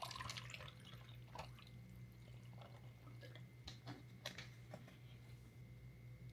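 Faint wet chewing and mouth sounds of someone eating fried chicken, with scattered soft clicks and smacks, over a steady low hum.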